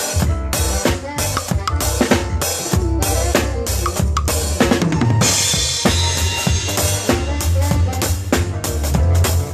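Live band playing during a sound check: a drum kit beating a steady rhythm of kick and snare over a constant low bass line, with a cymbal crash about five seconds in.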